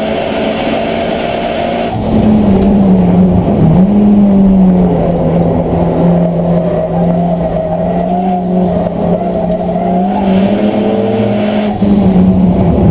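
Renault Mégane saloon race car's engine heard from inside the stripped, roll-caged cabin, running hard at speed. It gets louder about two seconds in, its pitch dips briefly around four seconds, and near the end the pitch drops with a short dip in loudness, as at a gear change.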